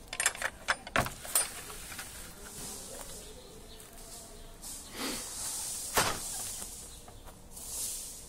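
Handling noise from a handheld phone being carried and turned: several sharp clicks and knocks in the first second and a half, one more knock about six seconds in, and rustling hiss between.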